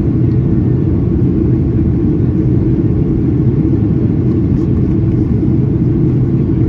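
Cabin noise of a Boeing 737-800 airliner in flight: the engines and airflow make a deep, steady rumble.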